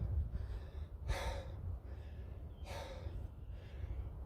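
A man breathing hard after a set of jump exercises, with two heavy, noisy breaths about a second in and near three seconds in: winded from exertion.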